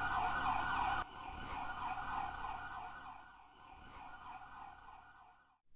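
Emergency vehicle siren with a fast warble, dropping in level about a second in and fading away as the vehicle drives off, cutting out shortly before the end.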